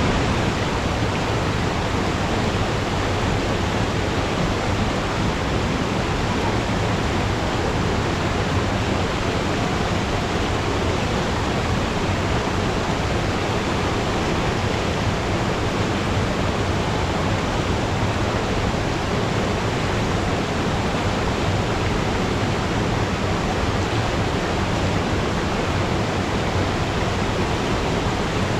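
Waterfall crashing into its pool in a mountain gorge: a loud, steady rush of falling water, unchanging throughout.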